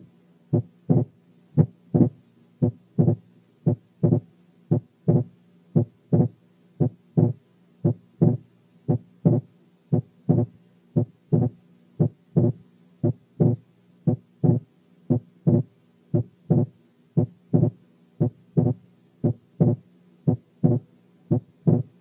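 Recorded heart sounds: a regular lub-dub at about one beat a second, with wide splitting of the second heart sound that widens on inspiration, the sign of complete right bundle branch block. A faint steady hum runs underneath.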